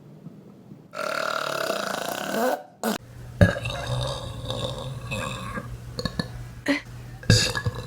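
People burping: a long, drawn-out burp starting about a second in, then after a sudden cut a few shorter burps over a low hum, with sharp knocks in between.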